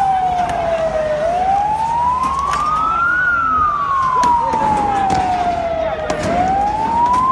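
Police siren wailing slowly: it falls to its lowest pitch about a second in, rises for about two seconds, falls for about three, then starts to rise again. Behind it are crowd noise and scattered sharp knocks.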